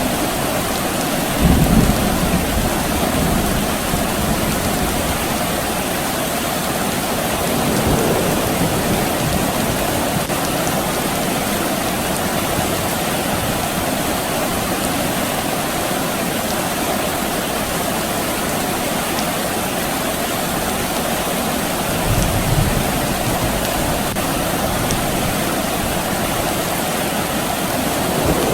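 Steady soft rain, with low rumbles of distant thunder: a short one about a second and a half in, a fainter one near eight seconds, and another about twenty-two seconds in.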